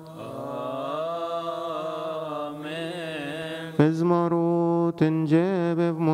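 Coptic Orthodox liturgical hymn chanted by male voices in long, drawn-out melismatic notes. A softer voice holds the line first; a stronger, lower voice comes in near four seconds, with a few short sharp strikes.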